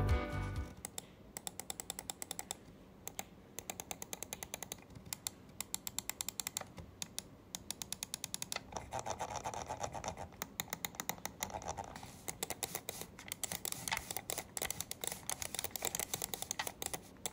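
AJAZZ AJ199 gaming mouse's buttons clicked over and over, in quick runs of sharp, light clicks.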